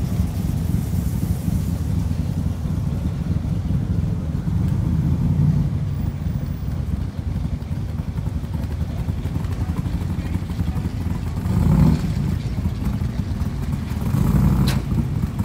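A vehicle engine idling steadily with a low rumble, and a sharp click near the end.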